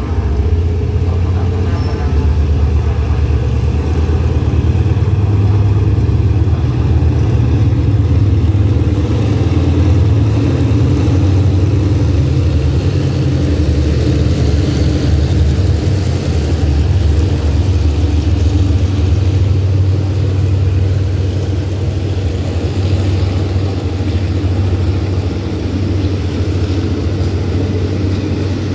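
Passenger train passing close by: the GE diesel-electric locomotive's engine gives a loud, steady low drone, while the coaches roll past on the rails with a hiss of wheel noise that swells at times.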